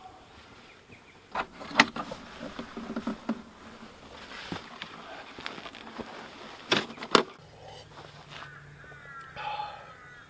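Footsteps and clothing rustle as a man climbs out through a low doorway, with sharp knocks, two close together about seven seconds in, as he sets a small portable power station and a mug down on the dirt. A steady low hum starts just after the knocks.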